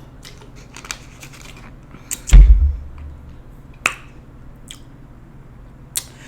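Close-miked eating: chewing garlic naan, with scattered sharp mouth clicks and a loud low thump about two seconds in.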